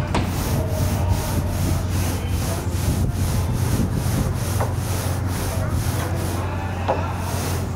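A brush scrubbing back and forth on a perforated metal screen panel in quick, even strokes, about four a second, over a steady low hum.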